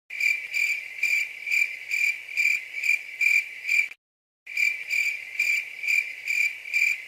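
Cricket chirping sound effect: a steady high chirp pulsing about twice a second. It cuts off abruptly about four seconds in and starts again half a second later.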